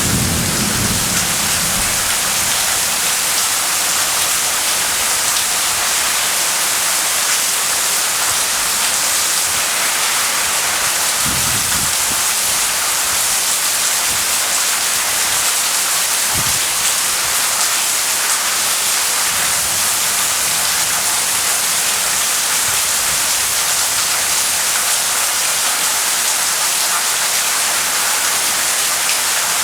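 Heavy rain pouring steadily during a thunderstorm, with short low rumbles of thunder at the start and twice more in the middle.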